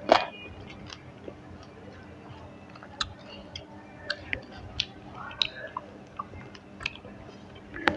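A person chewing a mouthful of rice and curry close to the microphone, with wet mouth smacks and many short, irregular clicks. A sharper, louder click comes right at the start.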